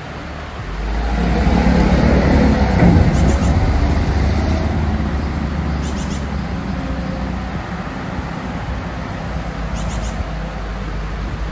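Diesel engine of a dump truck loaded with oil-palm fruit bunches driving past close by, growing loud within the first couple of seconds and then slowly fading as it pulls away.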